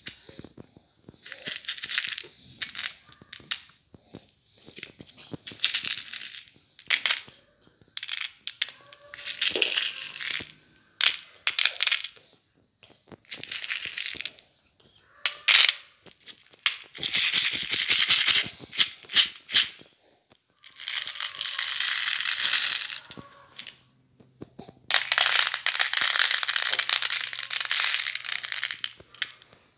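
Small hard sugar-coated candies rattling inside a clear plastic tub as it is shaken, in repeated bursts of one to three seconds. Between the bursts there are sharp clicks of single pieces tipping out and hitting the plastic.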